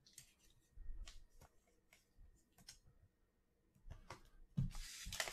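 Trading cards being handled and slipped into clear plastic card sleeves: faint scattered rustling and sliding, louder near the end.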